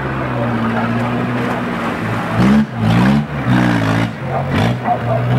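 Small tractor engine running steadily. From about two seconds in it is revved up and down several times while the tractor labours through deep mud.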